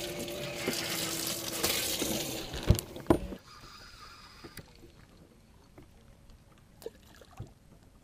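Water splashing and rushing aboard a bass boat, over a steady hum, for about three seconds, ending in two sharp knocks. After that it drops to a quiet stretch with a few faint clicks.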